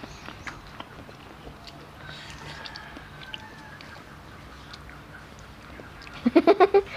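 Faint chicken calls in the background, with scattered light clicks of chopsticks against bowls. Loud voices break in near the end.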